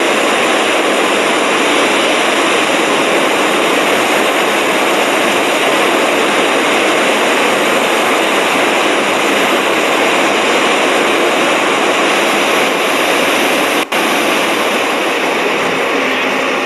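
Iguazu Falls: a steady, loud rush of falling water, briefly dipping about 14 seconds in.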